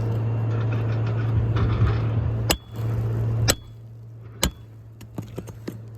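Three sharp metal strikes about a second apart: a hammer striking a roofing snake tool to drive a shingle nail under a lifted shingle. A steady low hum runs underneath and drops away after the second strike.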